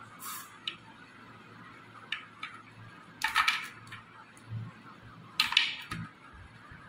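Cooked crab shell being cracked and broken apart by hand while eating, in three short crunching bursts with small clicks between.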